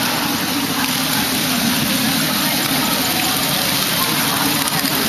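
Steady clatter of many small plastic balls running through a chain of motorised LEGO Technic Great Ball Contraption modules.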